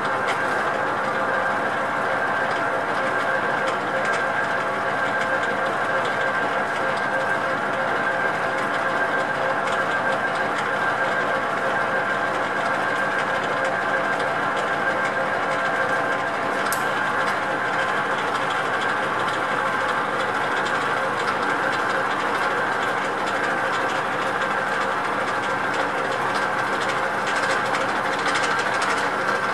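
Metal lathe running under power, its chuck and gearing giving a steady, even whir, while a threading tool takes a light scratch cut on the workpiece.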